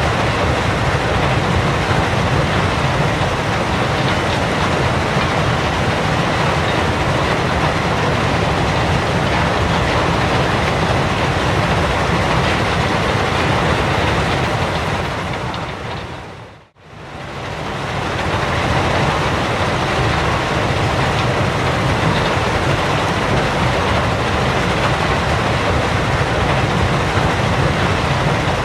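Gravel pit ambience: a loud, steady, dense rumble and rattle of working machinery. It fades out to silence a little past halfway and fades straight back in.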